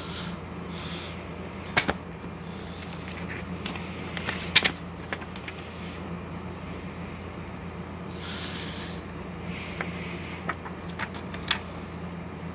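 Paper booklet pages being handled and flipped: scattered sharp clicks and paper taps, the loudest about four and a half seconds in, over a steady low hum.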